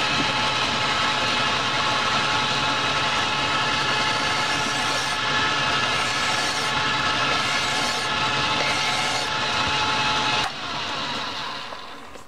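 Clausing metal lathe running with a steady mechanical whine while a hand file is worked against the spinning bar in its chuck. About ten and a half seconds in the lathe is switched off and coasts down.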